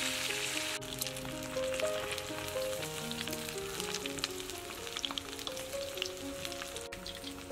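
Whole fish deep-frying in hot oil in a wok: the oil sizzles steadily with many small crackling pops. A background music melody plays under it.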